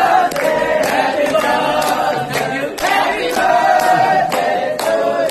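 A group of young men singing together, loud and unpolished, with hand claps keeping time.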